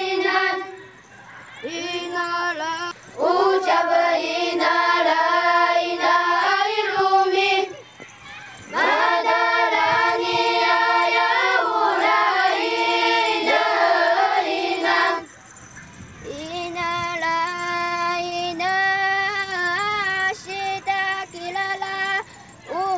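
A choir of Paiwan schoolchildren singing a traditional Paiwan ancient song (guyao) together, in long held phrases with two short breaks, about eight and fifteen seconds in.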